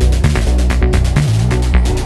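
Electronic background music with a heavy bass line and a steady beat.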